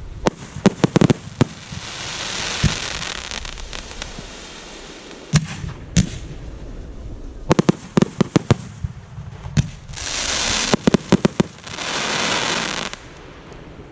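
Fireworks display: clusters of sharp shell bursts and bangs, some in quick runs of four or five, with long hissing stretches in between, the longest two near the end.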